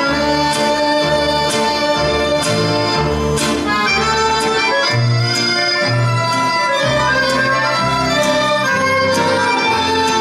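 Slovak folk band from Stará Pazova playing an instrumental passage of a folk song: accordions lead with violins, over guitar and a double bass line that changes note about every half second.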